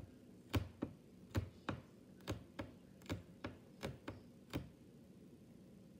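A sticky ball of crumpled alien (nano) tape dabbed again and again into loose sparkly pipe-cleaner fluff: sharp little taps, mostly in pairs, about one pair a second, stopping a little after four and a half seconds.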